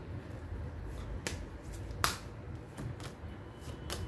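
Tarot cards being handled: a handful of short, sharp card clicks and snaps spread over the few seconds, the loudest about two seconds in.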